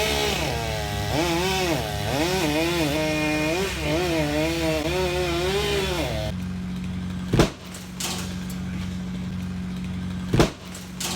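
Gasoline chainsaw running under load, its pitch rising and falling as it cuts, until it stops abruptly about six seconds in. After that, a steady low hum with two sharp knocks about three seconds apart.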